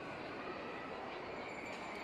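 Steady background noise of a large indoor shopping-mall atrium: an even hum and hiss with a few faint steady tones over it.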